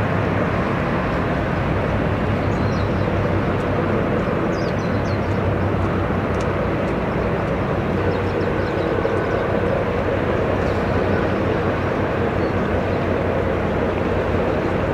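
Steady low drone of a large car carrier's engines and machinery, with a constant hum under a wide rushing noise. A few faint high chirps come through in the first half.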